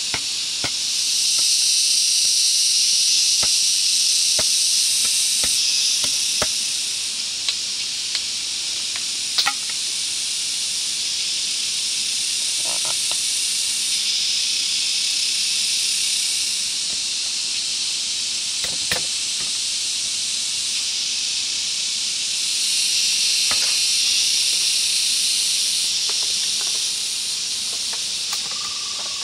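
A dense, steady, high-pitched chorus of forest insects. It swells louder for a few seconds near the start and again near the end, with scattered faint clicks and knocks over it.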